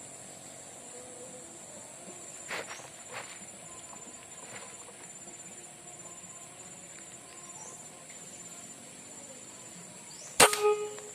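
Steady high-pitched chirring of insects, crickets or cicadas. Two faint clicks come a few seconds in, and near the end there is a single loud sharp crack followed by a brief ringing tone.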